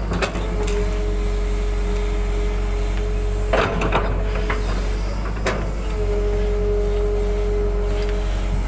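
Excavator's diesel engine running steadily under load with a hydraulic whine that fades and returns, and a few sharp clunks and knocks, about a second apart, partway through.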